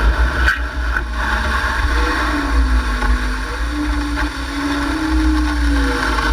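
A vehicle engine running under load, its pitch wavering and rising and falling, over a heavy low rumble.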